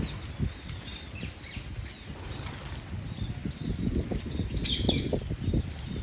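Low, irregular fluttering with short high chirps from small birds, likely spice finches; the fluttering grows denser in the second half, and a louder, harsher high note comes just before the end.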